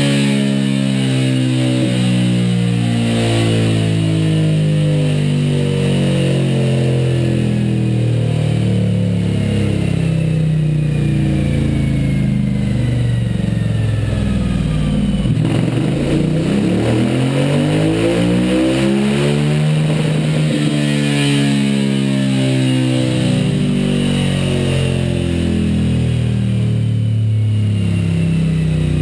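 Suzuki V-Strom 1000's V-twin engine running on a rolling-road dyno through a Scorpion Serket Parallel slip-on exhaust. It holds fairly steady revs, drops suddenly about halfway, then revs up in a rising sweep for several seconds before falling back and settling.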